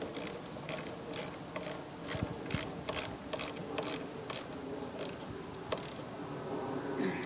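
Ratchet wrench clicking in short back-and-forth strokes, about two to three clicks a second, as the negative battery terminal clamp is tightened. The clicking stops about six seconds in.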